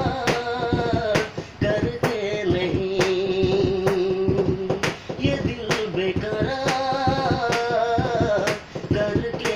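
A man singing a Hindi film song unaccompanied, holding long, wavering notes with short breaths between phrases. Sharp clicks keep the beat at about one a second.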